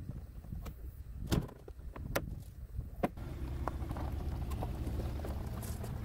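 A few sharp knocks in the first three seconds, then a Jeep Wrangler engine running with a steady low rumble.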